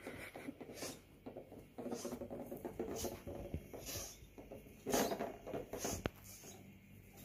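Cardboard-box toy bus, with cardboard wheels on wooden sticks, dragged on a string across carpet: soft scratchy rustling and scraping, with light patter of bare footsteps and a sharper knock about five seconds in.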